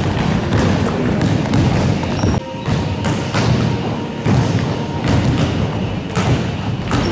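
Basketballs bouncing on a wooden gym floor: a run of repeated thuds from dribbling and passing.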